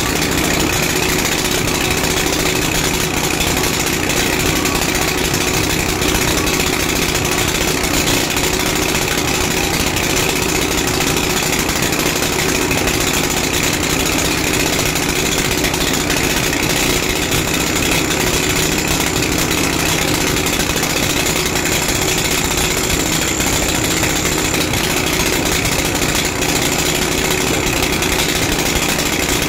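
Small engine of a portable concrete mixer running steadily at a constant speed, turning the drum.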